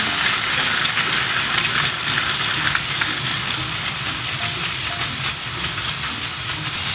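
Battery-powered Plarail toy trains running on plastic track: a steady whir from the small geared motors, with a patter of light clicks from the many wagon wheels crossing the track joints.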